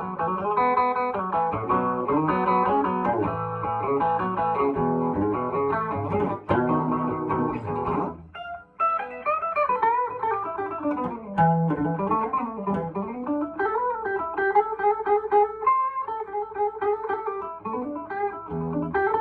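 Epiphone Olympic electric guitar with a Lollar P90 soap-bar pickup, tone all the way up, being played. It strums chords for about eight seconds, then switches to single-note lead lines with string bends.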